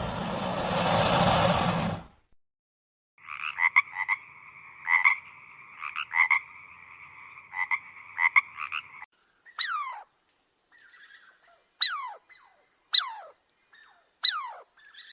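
Frogs calling: a buzzy trill held for about six seconds with louder pulses in it, then four short calls about a second apart that each fall steeply in pitch. A brief rushing noise comes first, before a short gap.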